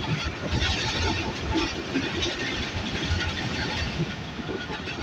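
Passenger train running along the track, heard from aboard: a steady rush of wheel and rail noise with irregular rattling and knocks.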